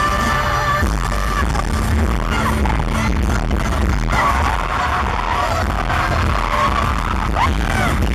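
Live pop song played through a concert sound system, heard from the audience: a heavy, pounding bass beat with female singing over it.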